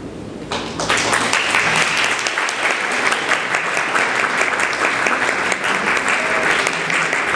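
Audience applause starting suddenly about half a second in, then carrying on as dense, steady clapping.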